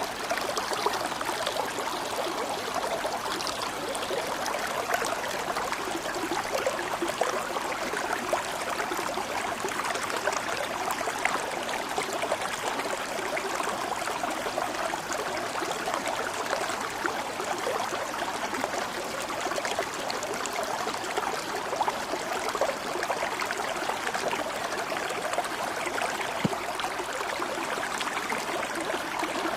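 Stream flowing steadily, a constant trickling and babbling of water over stones.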